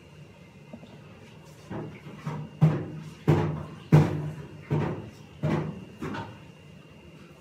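About eight sharp knocks in a row, each under a second after the last, over a faint steady high hum.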